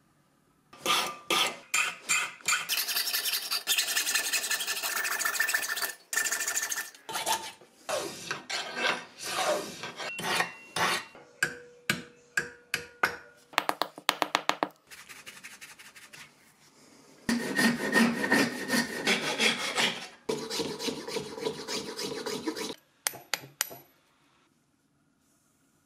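Hand filing or rasping: runs of scraping file strokes with short pauses between them, stopping about two seconds before the end.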